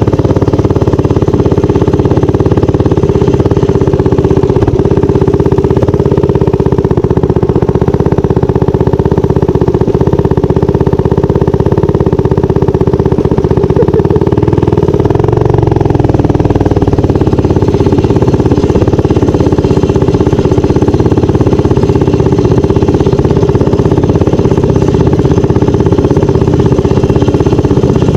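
Minibike's small engine running steadily as it is ridden along a dirt trail; the engine note shifts briefly about halfway through.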